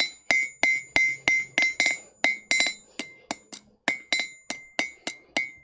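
Blacksmith's hammer striking a hot mild-steel nail blank on an anvil, about three blows a second with a short pause about two thirds through. Each blow rings out with a clear, high tone. The smith is drawing the nail's shank down to a consistent size.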